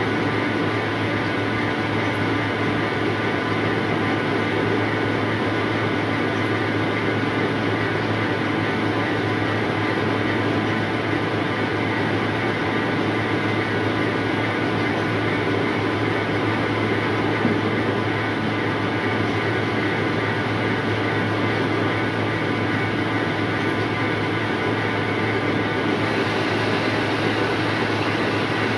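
Rice seed sorting machine running steadily: a constant mechanical drone with a low hum and many steady tones, unchanging throughout.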